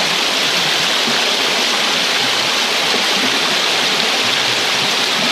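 Fast, shallow river water rushing and splashing steadily, a loud even wash with no breaks.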